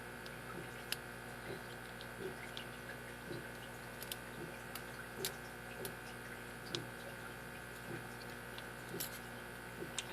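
Faint, irregular small clicks and ticks of a lock pick and tension wrench working the pins inside a Cisa brass 60 mm padlock during single-pin picking, over a steady background hum.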